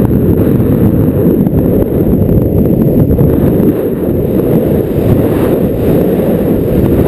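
Wind buffeting the camera microphone in flight under an acro paraglider: a loud, steady low rumble of rushing air.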